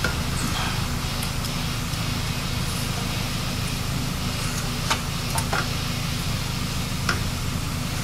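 A steady low hum in the shop, with a few light metallic clicks in the second half as a clutch pressure plate and disc are positioned against an engine flywheel.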